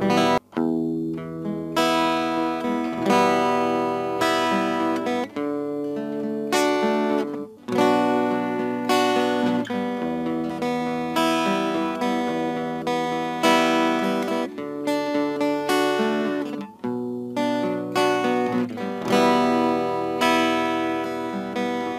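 Background music: an instrumental passage of an Arabic devotional song, a plucked string instrument strumming chords that change every second or two.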